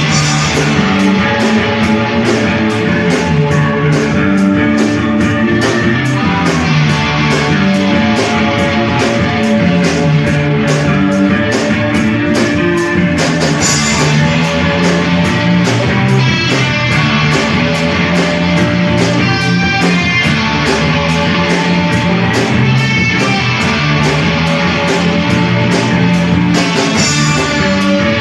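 Post-punk band playing in rehearsal: guitar over a steady, even beat and a stepping bass line, instrumental with no singing.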